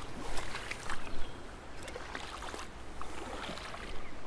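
Creek water sloshing and splashing around the legs of someone wading, with a couple of louder splashes about half a second and a second in.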